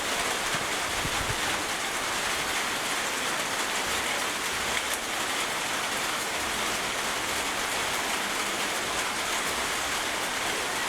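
Heavy rain falling steadily, a dense even hiss of drops drumming on surfaces.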